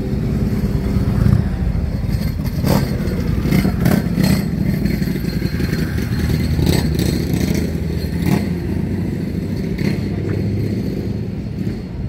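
A vehicle engine running steadily, with scattered short clattering knocks over it.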